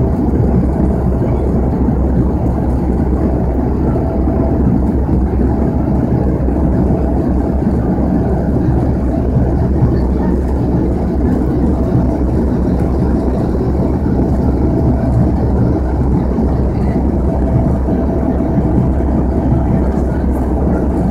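Cabin drone of a Bombardier Dash 8-100's twin turboprop engines and propellers, heard inside the cabin beside the engine: a steady low hum with a faint steady higher tone over it.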